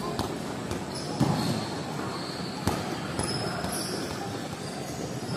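Futsal play on an indoor court: a ball thuds sharply about two and a half seconds in, with a few fainter knocks, over a steady din of the hall.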